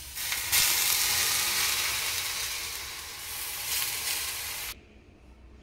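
Milk poured into a hot stainless-steel kadai over ghee-fried bread, sizzling and hissing as it hits the hot ghee. The sizzle is loudest about half a second in, eases a little, then cuts off suddenly near the end.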